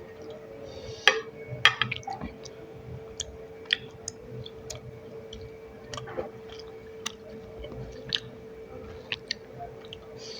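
Close-miked chewing and wet mouth sounds of someone eating rice with curry and fish, with sharp smacks and clicks scattered throughout, the loudest about a second in. A faint steady hum runs underneath.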